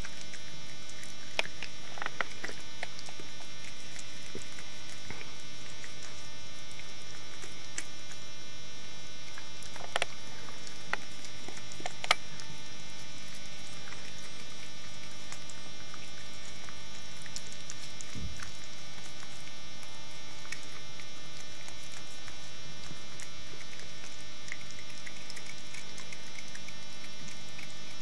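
Steady electrical mains hum, made of many even tones at a constant level, with a few faint short clicks over it.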